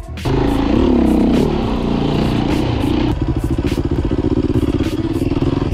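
Beta RR 450 enduro dirt bike engine, cutting in abruptly. It revs up and down for the first second or so, then runs at a steady speed with a fast, even pulsing.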